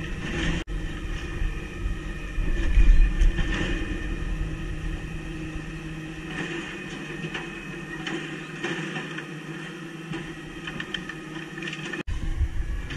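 Engine of a natural-gas automated side-loader garbage truck running steadily as the truck pulls ahead along the curb, loudest about three seconds in.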